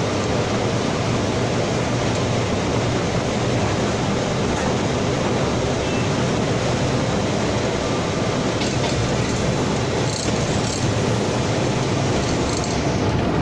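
Steady running noise of an Indian Railways electric locomotive under way, heard inside its cab: a constant rumble of wheels on rail and machinery with a low hum.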